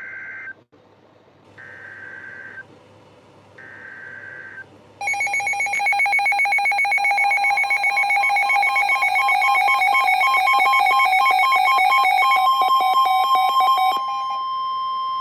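Emergency Alert System header on weather radio: the end of one burst of data tones and two more one-second bursts, each a second apart, then a long, loud, steady attention tone of about ten seconds that announces an incoming warning.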